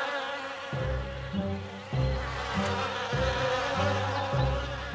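Cartoon bee buzzing sound effect, a steady buzz, over background music whose low bass notes come in about a second in.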